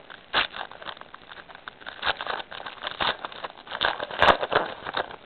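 Irregular soft clicks and rustles of football trading cards being handled and flipped through, with the sharpest click about four seconds in.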